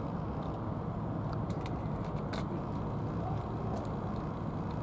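Two cats eating from bowls, a few small crisp clicks of chewing in the middle, over a steady low rumble.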